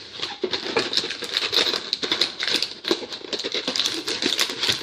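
Crinkling and rustling of foil trading-card pack wrappers being handled, a dense run of quick irregular crackles.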